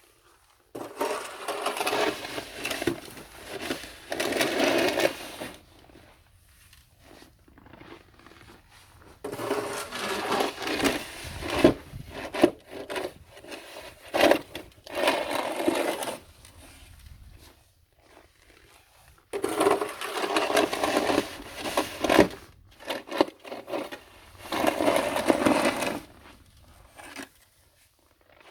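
Snow shovel scraping and pushing snow across a hard surface, in three long runs of strokes with short pauses between.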